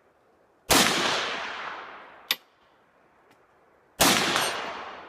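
Two rifle shots from an SKS firing 7.62×39 rounds, about three seconds apart. Each crack is followed by an echo that fades over about a second and a half. A single sharp metallic clink falls between the two shots.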